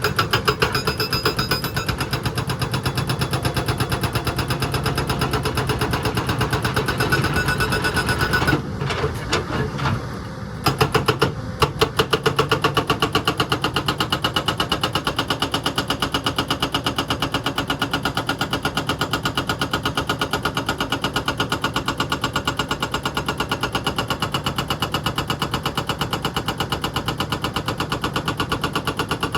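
Excavator's diesel engine running steadily with a fast, even pulse, briefly dropping away about nine seconds in and then picking back up.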